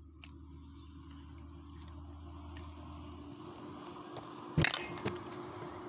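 Steady high chirring of crickets with a low hum beneath it; about four and a half seconds in, a sharp knock followed by a few fainter clicks.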